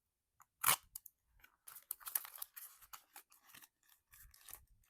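Toy packaging being cut and opened by hand: a sharp click under a second in, then irregular scratchy rustling and crinkling of cardboard and plastic.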